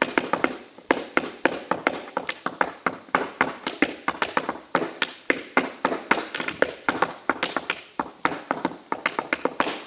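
Tap shoes striking a hard surface in fast improvised tap-dance footwork: crisp, dense taps with loud accents several times a second and quicker, softer taps between them.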